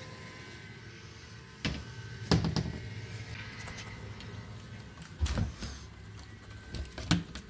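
Steady low electrical hum from a running coin pusher machine, with four short knocks and clacks, one of them a dull thump just past the middle.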